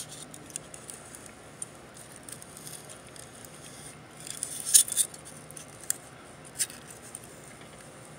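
Hands working the plastic casing of a BrightSign HD224 media player, giving light clicks and scrapes, with a cluster of sharper clicks a little past halfway and a couple of single clicks after it, as a flat piece is pushed through to free the circuit board.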